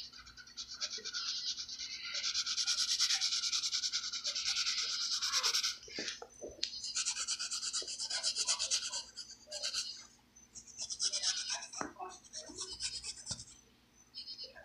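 Graphite pencil shading on paper: quick back-and-forth scratchy strokes in several spells of a few seconds each, with short pauses between them.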